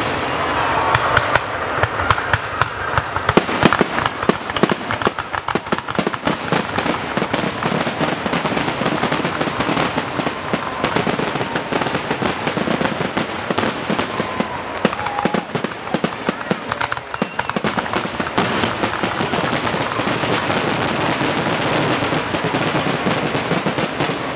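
Aerial fireworks finale: a dense, unbroken barrage of shell bursts, many rapid overlapping bangs a second.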